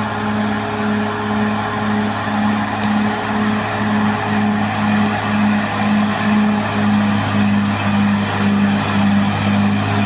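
Caterpillar D6R XL bulldozer's diesel engine running steadily under load, with a low hum that pulses about twice a second over the noise of the working machine.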